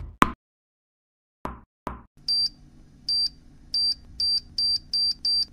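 Electronic beeping from a small spider-shaped gadget, a high beep that repeats faster and faster like a countdown. Before it, a knock as the music cuts off and two more short knocks about a second later.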